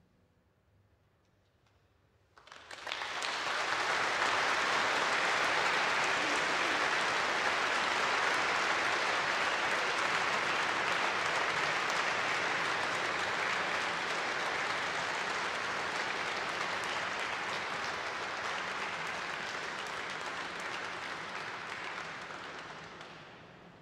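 Audience applause: after about two seconds of hush the clapping starts suddenly, holds steady, and tapers off near the end.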